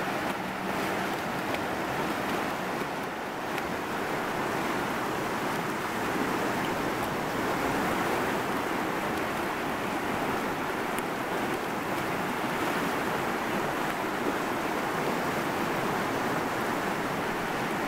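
Steady rushing of fast, turbulent river rapids, an even wash of water noise with no breaks.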